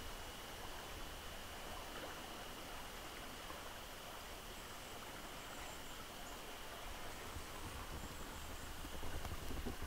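Faint, steady forest background hiss with a thin, high steady tone running through it. A low rumble on the microphone comes in near the end.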